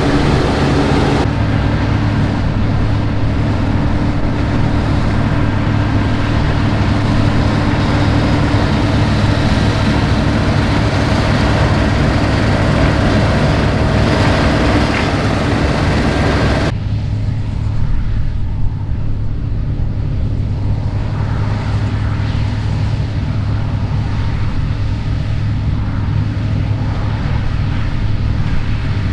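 New Holland CR8.90 combine harvester running steadily while harvesting wheat, a deep engine drone under machinery noise. The higher part of the sound changes abruptly about a second in and again about 17 seconds in.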